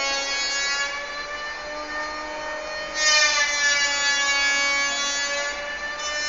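Electric swing gate opening, giving a continuous whining squeal of its moving metal parts. The squeal gets louder and shriller about three seconds in.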